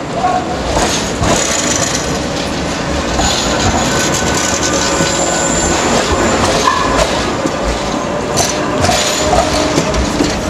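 Manchester Metrolink T-68 tram running past close by on curved street track: the rumble and rattle of its wheels and running gear, with high-pitched wheel squeal coming and going as it takes the curve.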